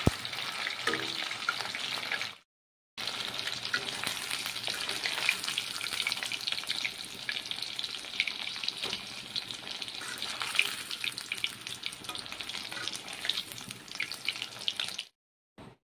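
Chicken pakora pieces deep-frying in hot oil in a metal kadai: steady sizzling full of small crackling pops, with a spatula stirring and turning the pieces. The sound drops out for about half a second near the start and stops shortly before the end.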